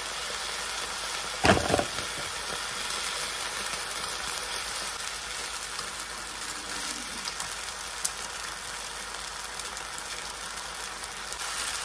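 Noodles and vegetables sizzling steadily in a wok as they are stir-fried and tossed with chopsticks. There is one loud knock about a second and a half in and a smaller click near the eighth second.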